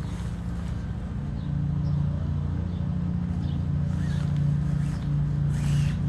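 A steady low motor hum with a fast even pulse, with light rustling of nylon tent fabric being handled.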